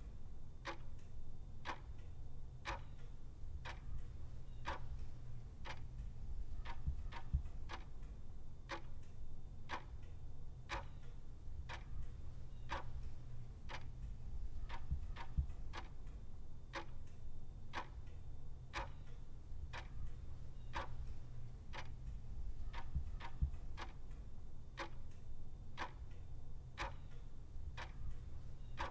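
Clock ticking steadily, with sharp, evenly spaced ticks over a low steady hum.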